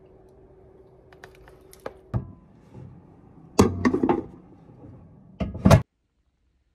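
Kitchen handling around a microwave oven: a faint steady hum stops about two seconds in, then the door and a ceramic bowl clatter in a burst of clicks and knocks, and two loud knocks come near the end.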